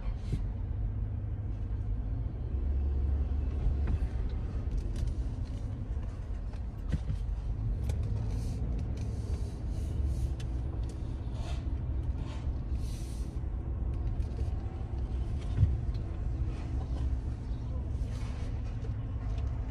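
Cabin noise of a 2017 Chevy Tahoe being driven slowly: a steady low rumble of engine and tyres, heard from inside the truck, with a few faint ticks.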